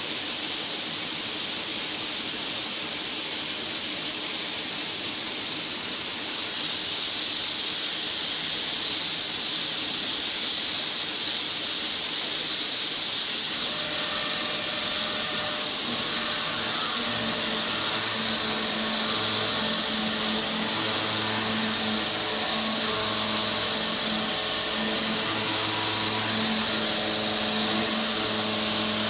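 Machining centre milling steel, with a steady high hiss throughout. About halfway in, a 52 mm roughing cutter at 1250 rpm starts cutting a pocket in the steel block (AISI, 215 HB). This adds a steady cutting tone at several pitches and a low hum that swells and fades in pulses as the cutter takes its 0.5 mm roughing pass.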